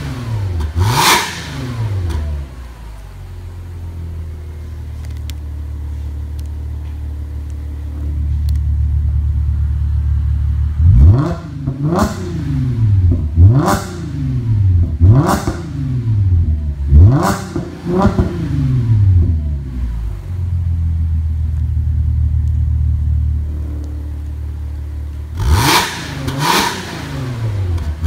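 Audi S4 B8's supercharged 3.0 V6 through an IPE Innotech aftermarket exhaust, revved while stationary. It gives one quick throttle blip about a second in, then idles and holds a steady higher speed. A run of six sharp blips follows, each rising and falling back. After another steady hold come three more blips near the end.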